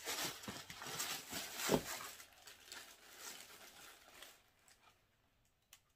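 Tissue paper rustling and crinkling as a shoe is unwrapped and lifted out of a cardboard shoebox, with a soft knock a little under two seconds in. The rustling dies away about four and a half seconds in.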